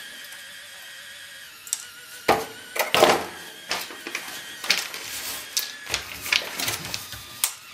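A 3D printing pen being handled: a faint wavering whine at first, then irregular sharp plastic clicks and taps from about two seconds in.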